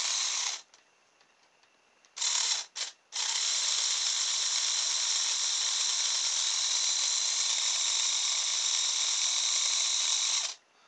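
Small brushed DC electric motor, salvaged from a hairdryer, driving a plastic propeller through a rubber-tube coupling, a gear and a shaft, switched on by hand test. It runs for about half a second, stops, gives a short burst and two quick blips about two seconds in, then runs steadily for about seven seconds before cutting off near the end.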